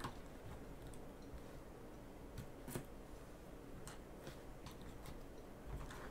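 A handful of faint, scattered clicks and light taps from a 2.5 mm hand hex driver working small screws out of a Traxxas Slash RC truck's plastic rear end.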